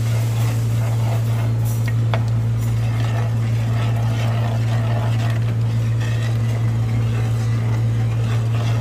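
A steady low mechanical hum holds at an even level throughout and is the loudest sound. Faint scraping of a spoon stirring thick mole in a clay pot sits beneath it.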